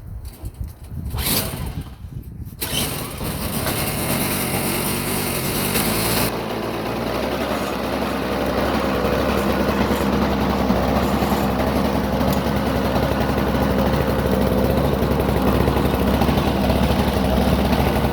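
Toro CCR 1000E snowblower's 3 hp engine catching after a couple of seconds of cranking, then running steadily, a sign the no-start has been cured by the carburetor cleaning. About six seconds in the sound changes: the hiss drops away and a steady low hum comes in.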